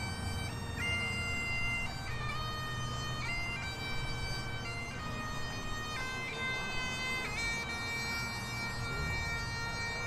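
Bagpipes playing a slow tune of long held notes over their steady drone.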